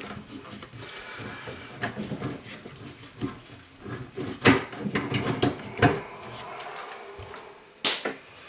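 Scattered clicks and knocks of tools and parts being handled during plumbing work, with a few sharper knocks about halfway through and one near the end.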